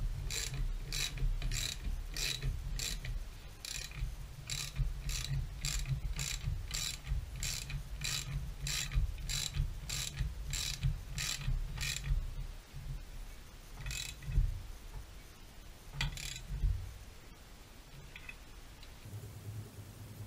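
Ratchet wrench clicking in a steady rhythm, about three clicks a second, as it winds in the threaded spindle of a bushing press tool, drawing a new integral link bushing into a BMW E39 rear knuckle. The clicking stops about twelve seconds in, followed by a few single clicks.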